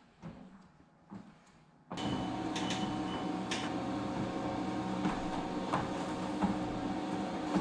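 Treadmill starting up about two seconds in, then its motor and belt running with a steady hum, with a few short beeps as it starts and regular footfalls thudding on the moving belt.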